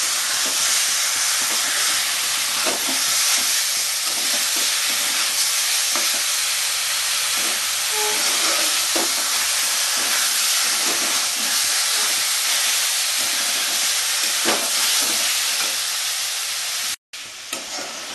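Chicken pieces with onion and spice paste sizzling in a kadai as they are browned with the masala, with a metal spatula scraping and knocking against the pan at irregular moments as it stirs. The sound cuts out for a split second near the end.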